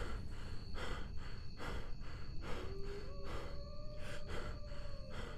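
A man's rapid, heavy breathing, a frightened panting of about two breaths a second. A faint long tone rises and then holds through the middle.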